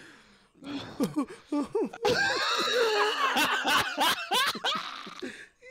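People laughing: a few short chuckles, then about two seconds in a loud burst of overlapping laughter that lasts about three seconds.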